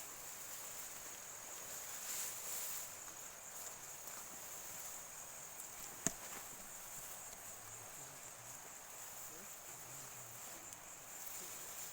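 Insects chirring steadily in grassland, one continuous high-pitched drone, with a single sharp click about six seconds in.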